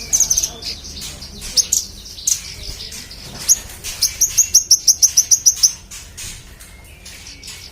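A manggaran songbird singing in sharp, high chirps: scattered notes at first, then a fast run of about a dozen chirps from about four seconds in, before it eases off.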